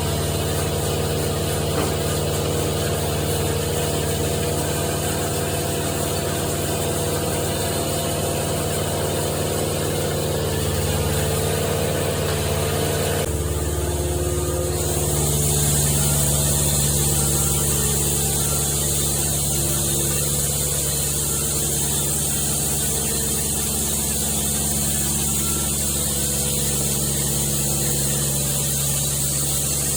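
An engine running steadily at idle, its pitch holding level; about 13 seconds in the sound changes abruptly and a steady hiss joins it.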